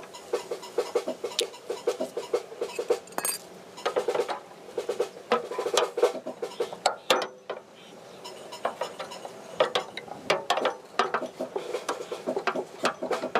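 Metal parts of a kitchen chimney being handled and worked on: a rapid run of clinks, knocks and clatter, played back at double speed.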